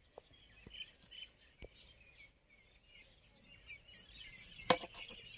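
Knife halving lemons on a board: a few light taps in the first two seconds, then a sharp knock of the blade on the board near the end. Small birds chirp faintly throughout.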